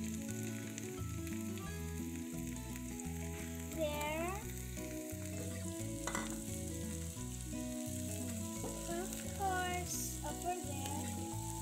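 Vegetables sizzling as they fry in a hot oiled non-stick pan, stirred with a spatula, as sliced tomato and bell pepper go in on top of onion and garlic. Background music with held notes plays along, with a rising swoop about four seconds in and again near the end.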